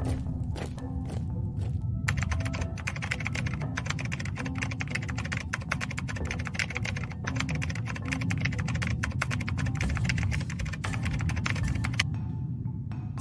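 Rapid typing sound effect, many keystroke clicks a second, from about two seconds in until near the end, over low background music.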